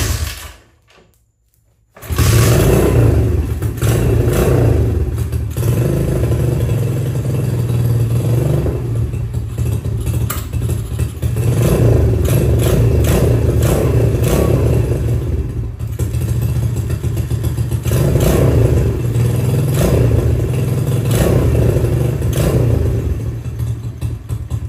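Single-cylinder four-stroke engine of an X-Pro 125cc pit bike, its carburettor jets freshly cleaned: one short burst as it is kicked over, then it catches about two seconds in and runs, revved up and down several times before settling lower near the end.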